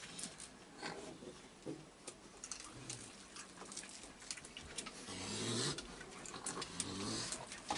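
Raccoons feeding and moving about on a wooden deck, with scattered clicks and scratches. About five seconds in, and again a little later, a raccoon gives two harsh, low calls.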